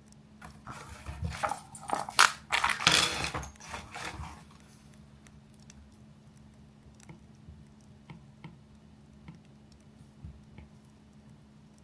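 Things being handled on a study desk: a few seconds of clattering and rustling, followed by faint scattered clicks.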